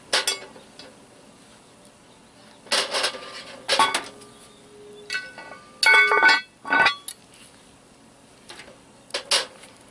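Lodge cast iron Dutch oven lid being handled and set onto the pot: several metal knocks and clanks, the loudest a ringing clank about six seconds in.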